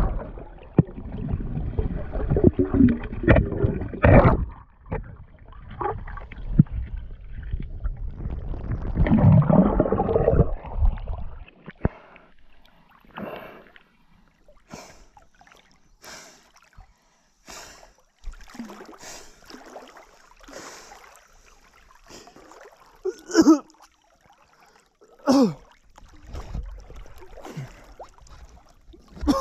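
Water churned by a swimmer, heard through a camera held underwater: dense, muffled bubbling and rumbling with knocks for about the first eleven seconds. It then stops abruptly, and above the surface only scattered splashes and drips are heard.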